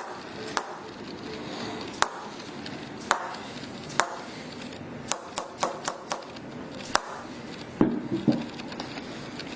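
A dozen or so sharp clicks or taps at uneven spacing, with a quick run of about six in the middle and two fuller knocks near the end.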